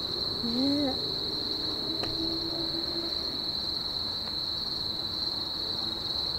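Steady high-pitched chorus of night-singing insects, one unbroken shrill tone. A brief voice-like sound rises and falls about half a second in.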